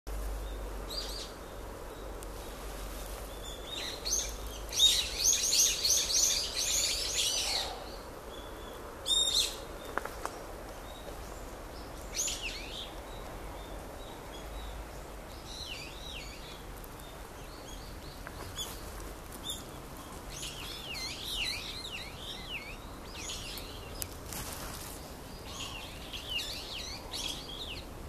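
Several small songbirds singing and calling together in a wood. A loud, rapid run of repeated high notes comes about four seconds in and lasts about three seconds, a short sharp call follows just after nine seconds, and scattered chirps and short song phrases carry on through the rest.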